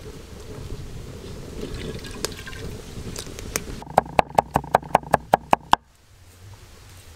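Cooking oil poured in a thin stream into a steel wok, then a knife chopping rapidly on a wooden board, about five even strokes a second for two seconds, mincing garlic.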